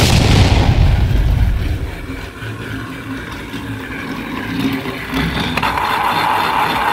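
A sudden explosion sound effect booms at the start and its rumble dies away over about two seconds. After that a battery-powered TrackMaster Diesel toy train runs on the plastic track, its motor sounding steadier and louder from about five and a half seconds in.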